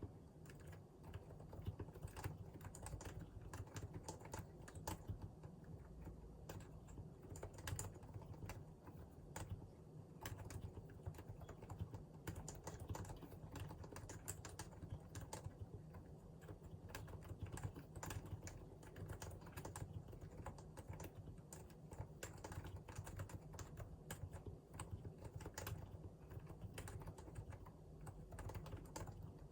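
Continuous typing on a Realforce R2 PFU Limited Edition keyboard with Topre electrostatic capacitive switches: a steady, unbroken run of keystrokes.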